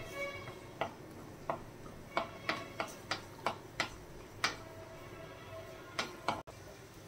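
Wooden spatula knocking and scraping against a brass kadai while cashews are stirred in hot ghee. About a dozen irregular sharp ticks come through, some with a brief metallic ring from the pan.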